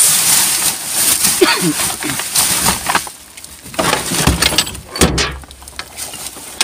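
Plastic bin bags and wrapping rustling and crinkling as items are dug through in a bin, with clinks and knocks of the goods inside and a few dull thumps near the end.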